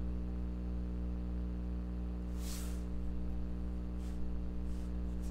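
Steady low electrical hum with several evenly spaced tones, and a faint brief rustle about two and a half seconds in.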